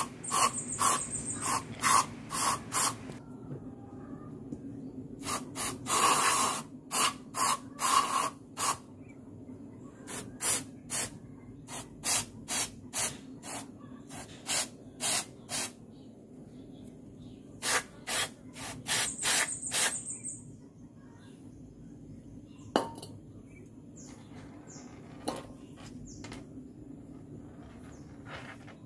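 Aerosol carburettor cleaner sprayed in many short bursts, in clusters with pauses between, onto motorcycle starter-motor parts to wash off crusted dirt. The last several seconds are quieter, with a couple of small clicks.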